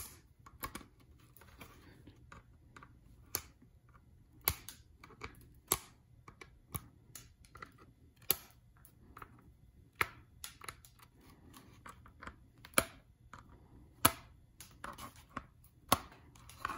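Sharp, irregular plastic clicks and taps as a hand pick pries the small screw caps off the back of a plastic solar charger case, a dozen or so clicks roughly a second apart.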